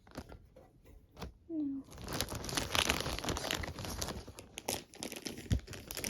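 Packaging being handled, crinkling and rustling: a dense run of crackling starts about two seconds in and lasts about three seconds, then thins to a few separate crackles.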